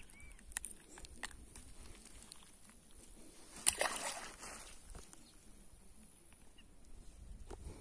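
A small fish dropped back into the reservoir water, one short splash about three and a half seconds in, with a few faint handling clicks before it.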